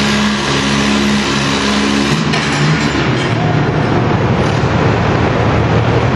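Antique Farmall tractor engine running hard under load while pulling a weight-transfer sled. About halfway through, its note drops lower and turns rougher as it lugs down against the sled.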